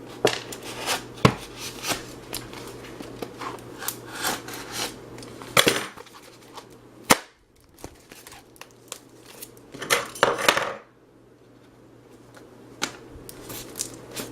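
Scissors cutting and prying a small adapter out of foam packaging: a run of sharp clicks, snips and scrapes, with two longer scraping tears, one about halfway through and one about three-quarters of the way through.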